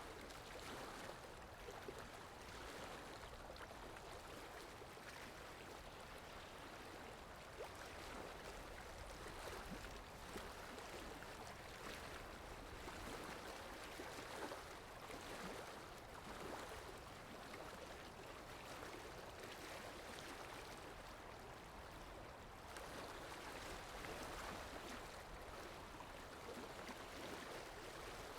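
Faint, steady rushing of water that swells and eases every few seconds.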